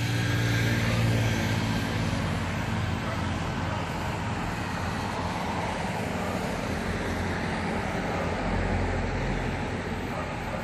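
Road traffic: a motor vehicle's engine running steadily over a general traffic hum, loudest in the first couple of seconds.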